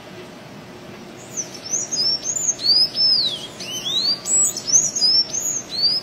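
Thraupis tanager (sanhaço-azul) singing: a quick run of high, squeaky notes that arch up and down in pitch, starting about a second in and breaking off suddenly at the end. Under it runs a steady hiss.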